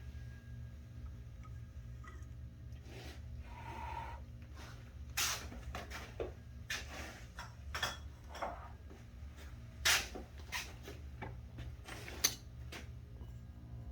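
Copper pipe pieces and fittings being handled on a workbench: scattered light clicks and knocks, the sharpest about five, ten and twelve seconds in, over a steady low hum.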